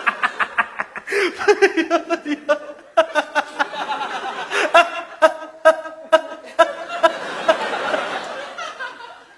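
A man laughing in rapid bursts, then breaking into long, wavering vocal wails and breathy sobbing sounds, a mock crying fit.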